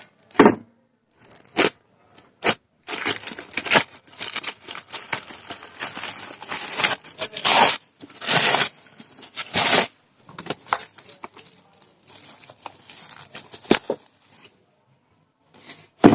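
Product packaging being opened by hand: irregular tearing and crinkling noises, broken by a few sharp clicks.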